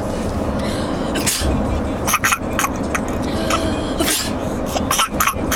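A person making several short, breathy puffs of blowing in quick, irregular succession, over a steady low rumble.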